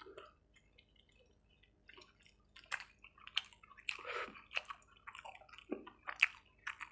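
Close-up wet eating sounds of curry and rice: squishy chewing and sharp mouth smacks. Almost quiet for the first two seconds, then a quick irregular run of smacking clicks.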